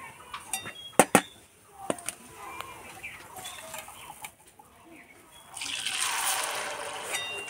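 Two sharp metal clicks from a slotted spoon against the pan about a second in. Near the end comes a loud sizzle as soaked sago pearls drop into the hot frying oil in the wok.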